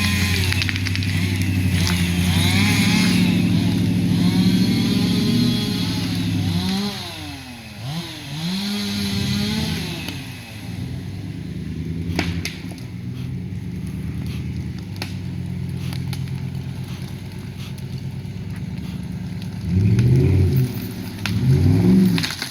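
Ford F-150's 5.0-litre V8 engine revving under load as the truck tows an uprooted tree, the revs rising and falling. Near the end come three short rev surges.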